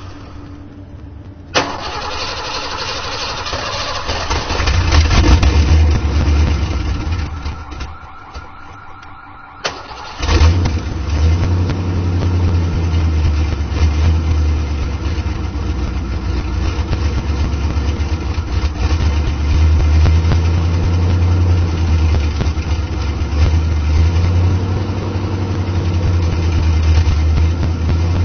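Old car engine being started: a first attempt about two seconds in swells up and then dies away, and about ten seconds in it fires again and settles into steady running.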